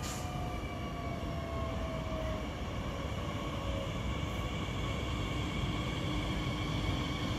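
Electric commuter train approaching the station, its low rumble slowly growing louder, with thin steady whining tones above it.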